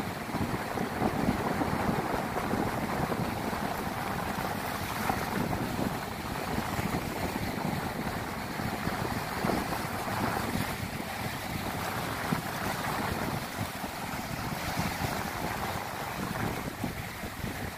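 Sea waves breaking and washing up a shallow sandy beach, a steady rushing surf, with wind buffeting the microphone.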